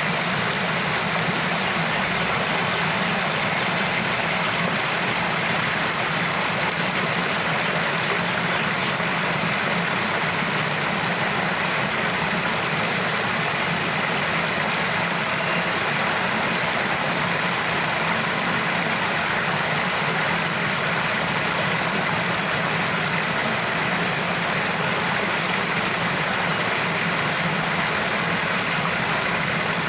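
Small waterfall: a steady, unbroken rush of falling, gurgling water.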